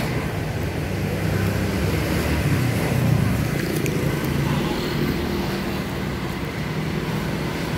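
Road traffic: motor scooters and cars passing close by, a steady low rumble that swells about three seconds in as a vehicle goes past.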